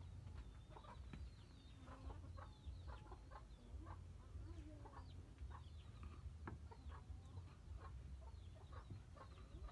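Chickens clucking faintly, many short calls scattered through, with high thin chirps over them, above a low rumble.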